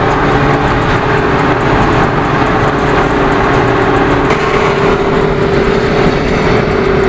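Car cruising at highway speed, heard from inside the cabin: steady road and wind noise under a constant engine drone. A lower hum drops out about four seconds in.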